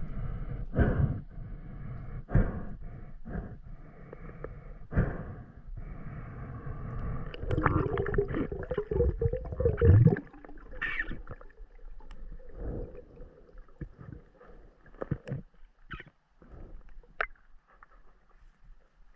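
Water gurgling and bubbling, with scattered knocks and thumps, as heard underwater or at the water's surface.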